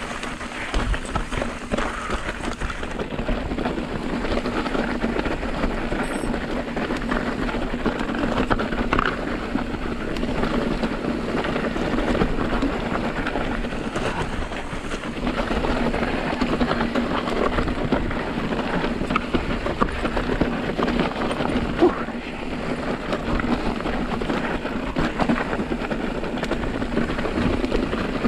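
Mountain bike rolling down a loose, rocky trail: the tyres crunch over loose rock and gravel and the bike rattles with many small knocks, without a break.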